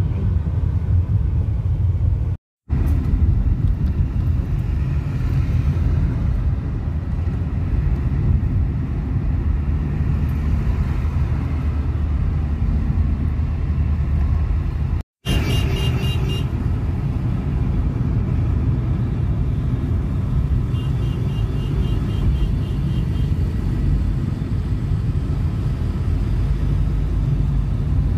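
Steady low road and engine rumble of a Hyundai car heard from inside the cabin while driving in traffic. The sound cuts out completely for a moment twice, and a brief high-pitched tone sounds just after the second cut.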